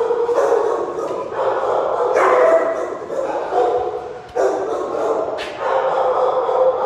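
Several dogs in shelter kennels barking and whining at once, with drawn-out, overlapping calls.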